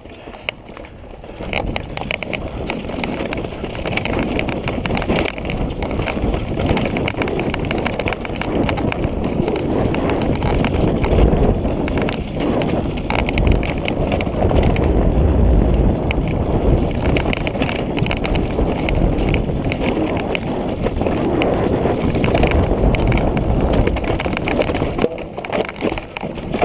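Orbea downhill mountain bike descending rocky, leaf-strewn singletrack. Tyres crunch over dry leaves and rocks in a continuous rapid clatter, with the bike rattling over the bumps and a steady low rumble of wind on the microphone.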